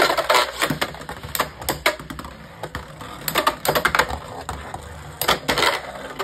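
Two Beyblade X spinning tops, Guilty Longinus and Dran Sword 3-60 Flat, battling in a plastic Beyblade X stadium: irregular sharp plastic clacks as they collide and strike the stadium walls, over a low steady whir.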